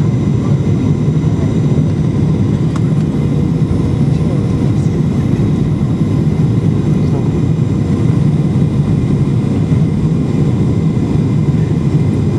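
Steady airliner cabin noise during the landing approach: the even, low rush of the jet engines and airflow, with faint steady tones over it.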